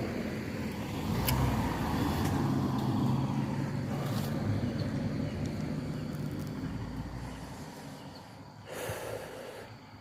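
A motor vehicle passing on the road: engine and tyre noise that swells over the first couple of seconds and then slowly fades away.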